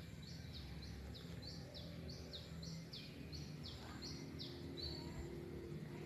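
A bird calling a fast series of short, downward-slurred chirps, about two or three a second, which stops about five seconds in, over a faint low hum.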